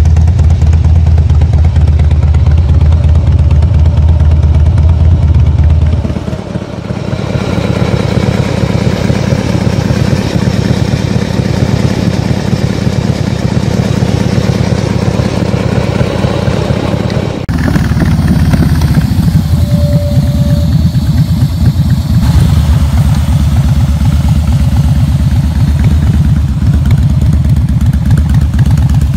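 Harley-Davidson V-twin motorcycle engines running while parked. One bike's engine is heard first, and an abrupt switch to a second custom bike's engine comes about two-thirds of the way in.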